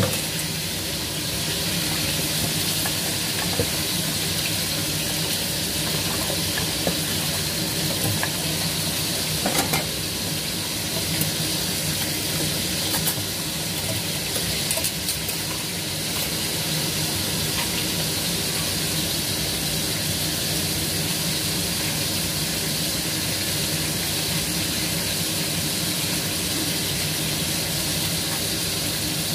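Food frying in a pan, a steady sizzling hiss with a low hum underneath, and a few light clinks of a utensil stirring about ten and fifteen seconds in.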